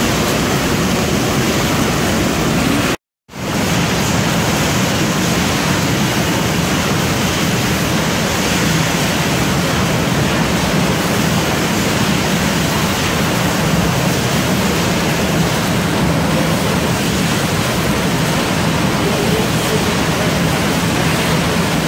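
Steady factory machinery din from a broccoli and cauliflower processing and packing line: a loud, even, hiss-like noise with a low hum beneath it. It drops out for a fraction of a second about three seconds in, then carries on unchanged.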